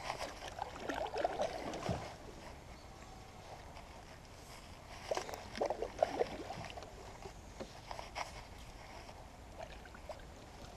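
Kayak paddle strokes in calm water: splashing and dripping as the blades dip and lift, in two spells, about a second in and again about five seconds in, with a few light knocks later.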